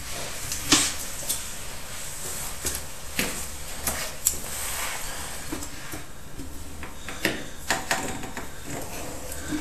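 Drain inspection camera on its push rod being fed into a soil pipe: irregular knocks and clicks as the rod is handled and the camera head bumps along the pipe, over a steady low hum.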